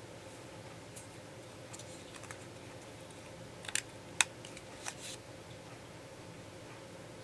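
Hands handling paper craft pieces and small tools on a tabletop: faint handling noises, then a few sharp clicks and taps near the middle, the loudest about four seconds in, over a faint steady hum.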